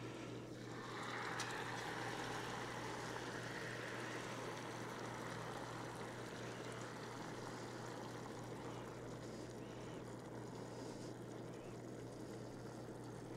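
Beef gravy poured from a saucepan into a still-hot cast-iron Dutch oven, sizzling and hissing as it hits the hot iron and seared roast; the hiss starts about a second in and slowly dies down. A steady low hum runs underneath.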